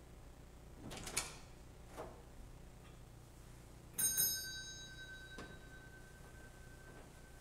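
A small bell struck once about four seconds in, its clear high tone ringing on and fading over about three seconds: the sacristy bell announcing the start of the service. Before it, two sharp clicks, about one and two seconds in.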